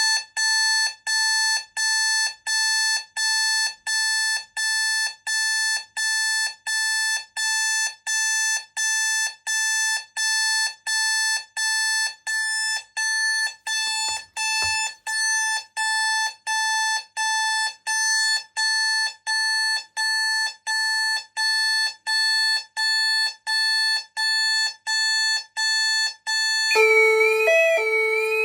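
Pyronix Euro 46 intruder alarm sounding a loud, evenly pulsed electronic beep, about three beeps every two seconds. Near the end it switches to a siren: a lower steady tone with a warbling tone over it.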